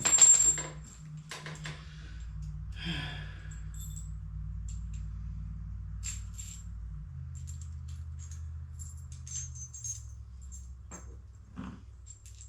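Metal hand tools and hardware clinking against each other and the jack's steel parts: a sharp clatter at the start, a few lighter clinks in the next couple of seconds, then scattered faint ticks over a low steady hum.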